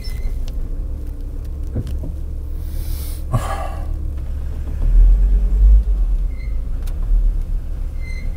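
VW T4 Syncro van on a test drive: a steady low rumble from the running van, louder for a moment about five seconds in, with a brief hiss about three seconds in.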